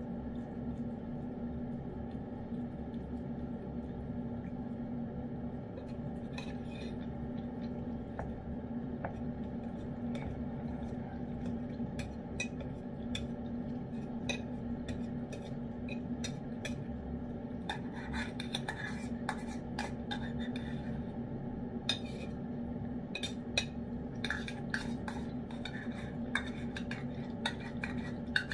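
A cat eating wet food from a ceramic dish, with small sharp clicks of licking and chewing mixed with a metal spoon clinking against the dish. The clicks are sparse at first and come thick and fast in the second half, over a steady low hum.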